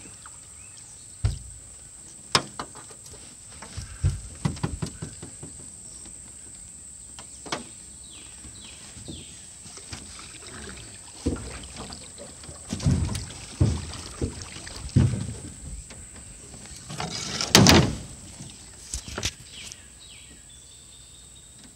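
Scattered knocks and thumps against the hull of a flat-bottomed metal jon boat as gear and bodies shift in it, with a longer, louder clatter about three quarters of the way through.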